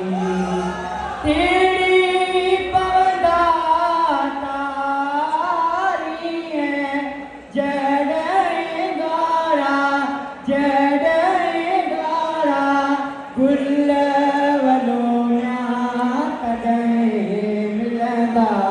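A man singing a long-drawn, chant-like melody into a microphone, amplified through the hall's sound system. He sings in several long phrases of held, wavering notes, with short breaks between them.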